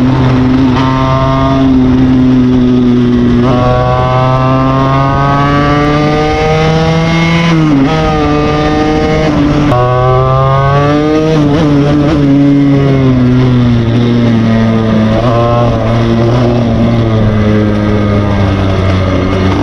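49cc two-stroke motorcycle engine with a Polini air filter and a Dellorto PHBL 24 mm carburettor, accelerating through the gears: the pitch climbs, drops sharply at each shift and climbs again several times, then falls away more slowly near the end.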